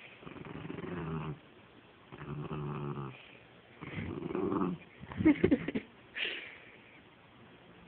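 Small dog play-growling in three low rumbling bursts while tugging on a stuffed toy, followed by a cluster of sharp, loud clicks and snaps near the end as the toy is shaken and grabbed.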